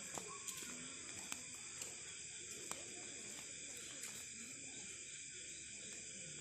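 Faint night-time outdoor ambience: a steady high-pitched drone with a few faint scattered ticks.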